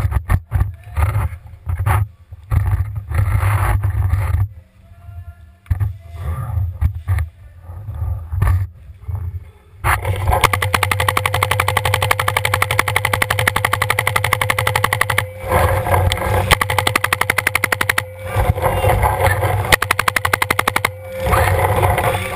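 Paintball marker firing long, rapid strings of shots, broken by brief pauses, from about halfway through. Before that come irregular knocks and rustling of the marker and gear being handled behind a bunker.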